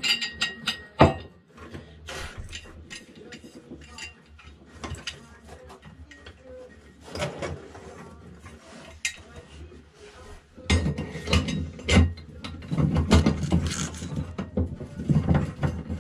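Clinks, knocks and rattles of a Cape Horn self-steering windvane's metal parts being handled and fitted. The knocks are scattered at first and grow louder and busier from about eleven seconds in.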